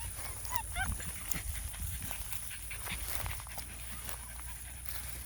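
A quick run of short, high squeaky calls from an animal about a second in, over a steady low rumble and scattered light clicks.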